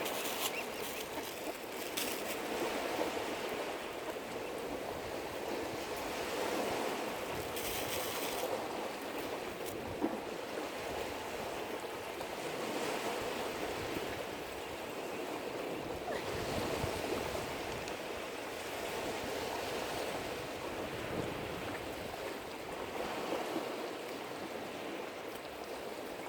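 Small lake waves lapping and washing at the shore: a steady rushing wash of water that swells and eases every few seconds.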